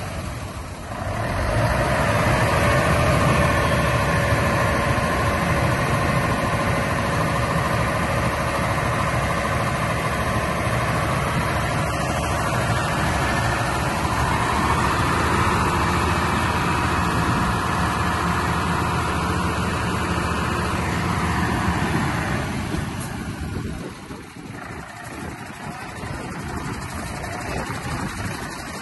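1996 Mercedes-Benz 1824 dump truck's six-cylinder diesel engine running steadily, with a higher-pitched hum over it, while the hydraulic tipper body lifts. About twenty-two seconds in, the sound drops to a quieter idle.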